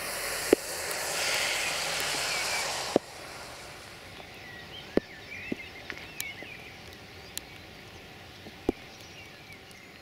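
Rain falling as a steady loud hiss that cuts off suddenly about three seconds in, then birds singing over a quiet background, with scattered sharp ticks.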